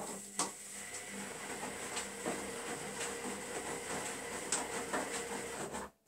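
Zanussi Lindo300 front-loading washing machine running in its rinse cycle: a steady running sound with scattered knocks that starts abruptly and cuts off suddenly just before the end.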